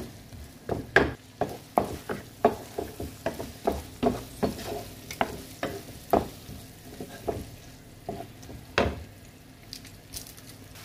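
A spatula scraping and knocking against a nonstick frying pan while stir-frying mixed vegetables and egg, in short irregular strokes about two to three a second. A low sizzle of frying runs underneath.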